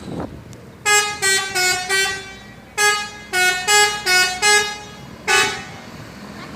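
Bus 'telolet' multi-tone musical air horn playing a short stepped tune: four quick notes, a brief pause, then five more, and a single rougher blast near the end.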